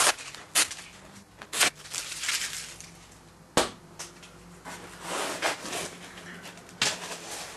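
Handling noise: a foam wing and things on a wooden desk being moved about, giving several sharp knocks and clicks with rustling between them.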